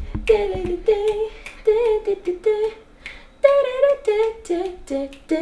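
A woman singing a tune wordlessly in a string of short, quick syllables, about a dozen notes with small leaps in pitch.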